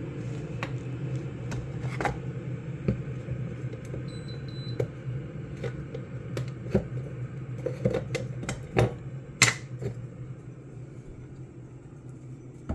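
Scattered light clicks and knocks of plastic coffee-grinder parts and a scale being handled, over a steady low hum. Two short electronic beeps sound about four seconds in.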